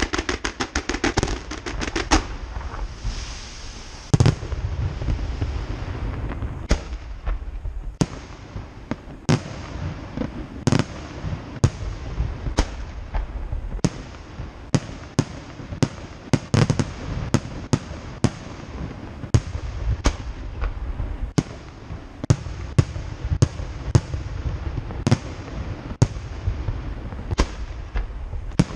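Fireworks display: a rapid string of crackling reports in the first two seconds, then a loud bang about four seconds in, followed by a steady series of sharp shell bursts, roughly one or two a second, over a continuous low rumble.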